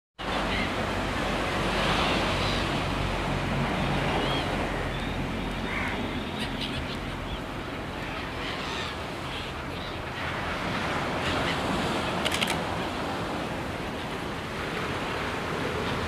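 Surf washing onto a sandy beach: a steady rush of breaking waves.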